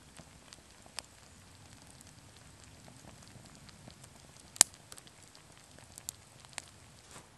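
Wood campfire crackling, with a few sharp pops; the loudest pop comes about halfway through.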